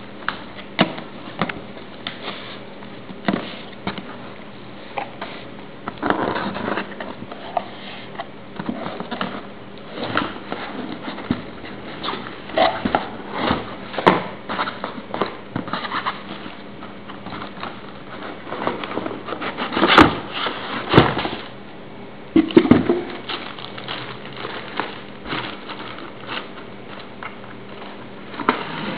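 Cardboard shipping box being handled and opened by hand: irregular scraping, rustling and knocking of cardboard and packing tape, with a few sharper knocks about two-thirds of the way through.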